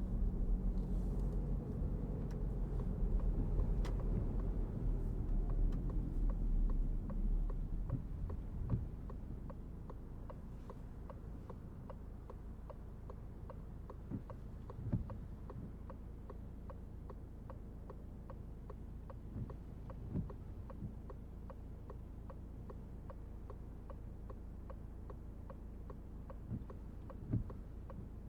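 Inside the cabin of a 2023 Citroen C5 Aircross diesel, the low road and engine rumble fades after about eight seconds as the car slows. After that, the turn-signal indicator clicks at a steady, even rhythm, with a few soft thumps now and then.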